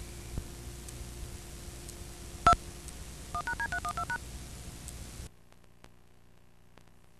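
VHS tape playback hiss and hum with a single short beep, then a quick run of about nine touch-tone dialing beeps at changing pitches. About five seconds in the hiss drops to a quieter level as the deck switches to its hi-fi sound track.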